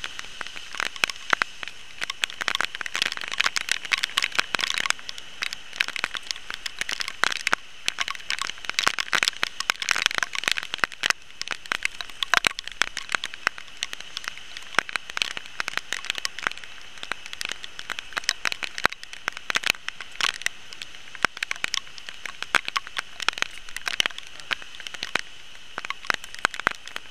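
Dense, irregular crackling and clicking from close handling: hands working fishing tackle and brushing shrub leaves right by the microphone, over a steady high-pitched hiss.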